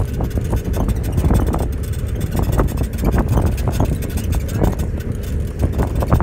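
Dense, uneven rumble of a large wildebeest herd galloping past at close range, many hooves pounding the ground at once.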